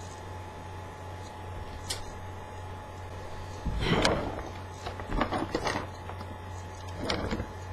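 Rustling and shuffling as a person shifts and moves about on a fabric couch, in three noisy bursts about four, five and seven seconds in, over a steady low hum.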